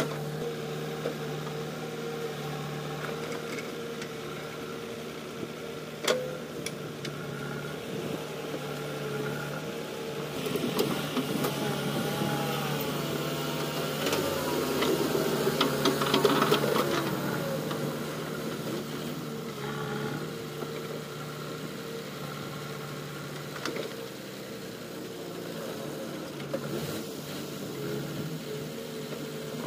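Heavy diesel engine running steadily as a backhoe loader tows a mud-stuck dump truck by a chain, getting louder and busier for several seconds in the middle as it works harder. A sharp knock about six seconds in.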